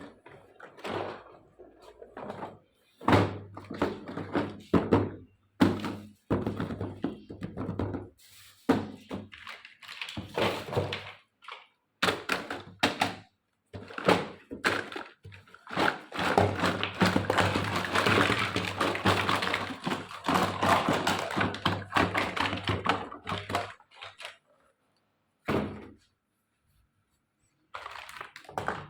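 Handling of a plastic toy kitchen set and its packaging: irregular thunks, taps and clicks, with a denser stretch of continuous rustling in the middle and a brief lull near the end.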